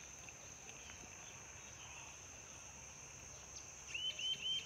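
A steady high insect drone runs throughout. About four seconds in, a rufous-tailed jacamar starts a rapid run of sharp, high call notes, about five a second, which is louder than the insects.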